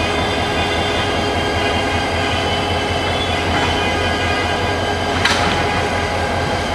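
Diesel locomotive running steadily as it is swung slowly round on a turntable: a low engine hum with a steady high-pitched whine over it. There is one sharp metallic clank about five seconds in.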